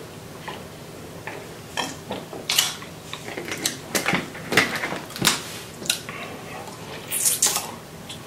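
Table-handling and eating noises: a plastic drink bottle being handled and set down, and a metal fork against food and a foam takeout box. They come as a series of sharp clicks and knocks, most of them from about two seconds in.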